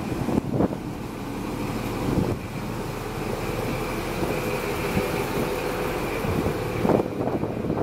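Class 43 HST power car's Paxman VP185 diesel engine idling at a standstill: a steady drone with a high whine held over it, and a few light knocks.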